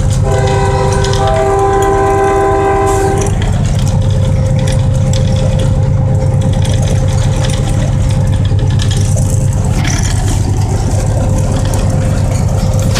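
Diesel locomotive running with a steady low engine drone. Its horn sounds once, several tones at once, for about three seconds starting just after the beginning.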